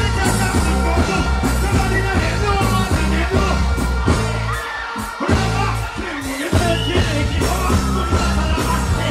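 Live dancehall music through a PA: a heavy bass riddim with a vocalist on microphone over it and shouts. The bass drops out briefly about halfway through, then comes back.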